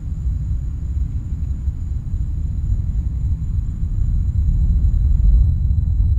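Deep, steady rumble of the Falcon 9's nine Merlin first-stage engines in flight, growing slowly louder.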